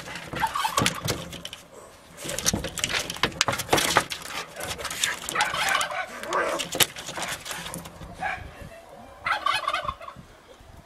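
Two cats fighting: repeated bursts of screeching and yowling with scuffling and scratching against corrugated roof sheeting, quieter for a moment near the end.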